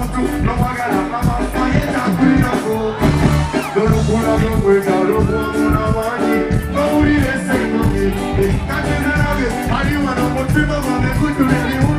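Upbeat recorded music with singing and a steady beat, in a reggae/ska-like style.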